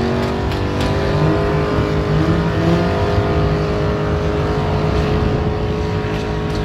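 Car engine held at steady high revs during a burnout, a constant engine note over the rush of the spinning, smoking tyres.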